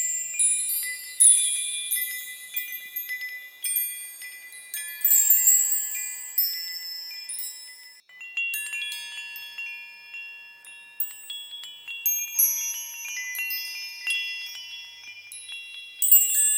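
Small high-pitched bells chiming at random, struck notes overlapping and ringing out, with a brief lull about eight seconds in.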